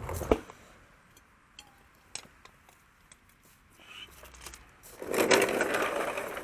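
Hand work on a sway bar bushing and bracket: a sharp knock at the start, a few light metallic clinks, then about a second and a half of rubbing and scraping as the stiff new rubber bushing is forced against the rusty sway bar by hand.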